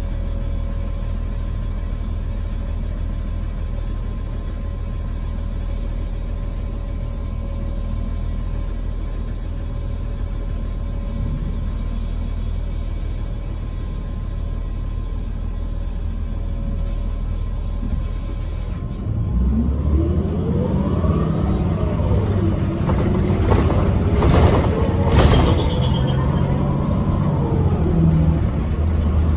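Transit bus's Cummins Westport L9N natural-gas engine running at a steady idle. About two-thirds of the way through, the sound changes suddenly and gets louder as the bus pulls away: the engine pitch rises and drops back in repeated arcs as the Allison automatic transmission shifts up through its gears.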